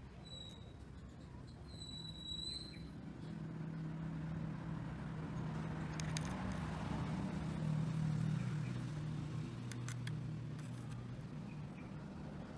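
A low, steady motor rumble, like a vehicle engine nearby, growing louder toward the middle and easing off near the end, with a few faint clicks.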